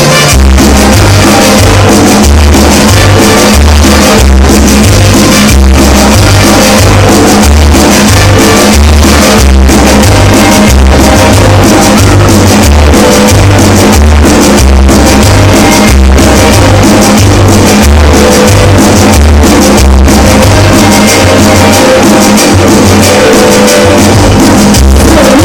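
Loud dance music played over a mobile sound system, with a heavy pounding bass beat.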